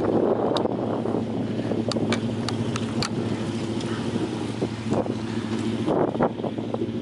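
A vehicle engine running at a steady, low hum, with wind buffeting the microphone. A few light clicks come about two to three seconds in.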